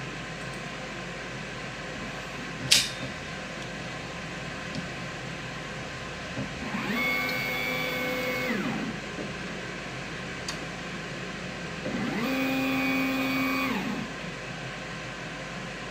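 xTool S1 laser engraver's stepper motors moving the laser head twice, each move a whine that rises in pitch, holds and falls again over about two seconds. A single sharp click comes a few seconds in, over a steady background hum.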